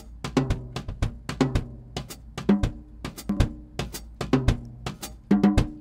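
Playback of a simple home recording of an acoustic drum kit (overheads, one snare mic, one kick mic) run through a valve compressor plugin on the drum bus: a steady kick-and-snare beat with cymbals, about two hits a second.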